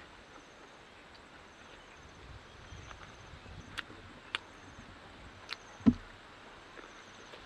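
A few short, sharp crunches of biting into toasted bread and grilled beef skewers while eating, the loudest a fuller crunch near the end. Faint insects chirp in a regular repeating pattern in the background.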